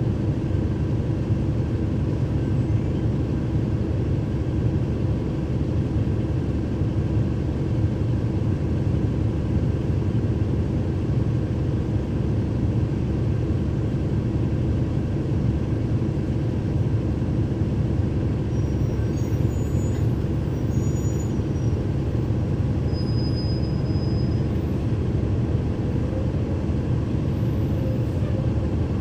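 Cummins ISL9 diesel engine of a NABI 416.15 transit bus idling steadily, heard from inside the bus. Near the end a faint rising whine begins as the engine starts to pick up.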